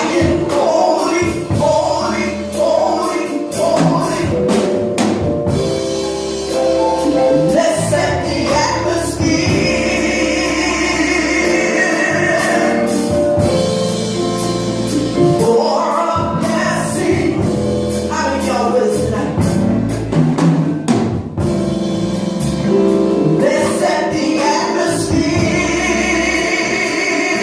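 Gospel worship song: singers over a band with a drum kit, the voices moving through sung phrases above sustained chords.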